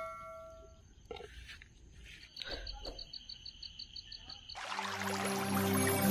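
A bell-like chime fading away, then an insect-like trill pulsing about six times a second over a steady high tone. About three-quarters of the way in, soft new-age music with held chords starts and becomes the loudest sound.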